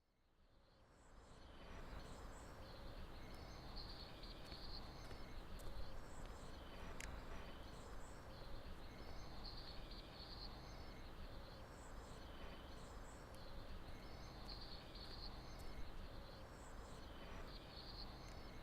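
Outdoor ambience fading in over about two seconds: a steady low rumble with clusters of high chirping recurring every few seconds.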